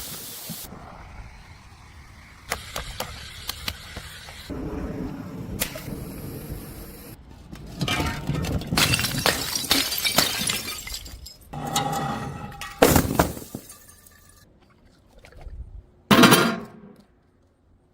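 Glass bottles smashing, with shards clinking and rattling. The sound comes as a series of short cut-together takes, each with sharp impacts, the loudest about 13 and 16 seconds in.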